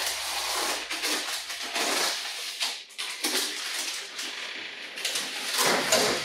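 Rustling of cloth and oven gloves with scraping and handling noises, ending in a louder clatter about six seconds in as a gloved hand reaches into the oven.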